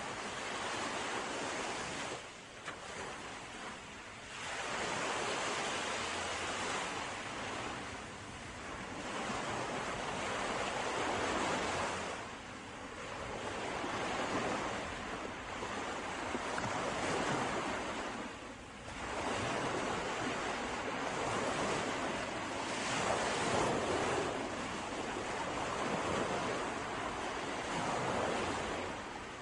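Ocean surf: waves breaking and washing in, a continuous rush that swells and fades in surges several seconds apart.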